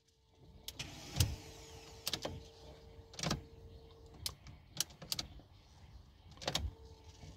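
Faint sharp clicks and knocks of work on a car, with a faint steady whine that stops about four seconds in and comes back near the end.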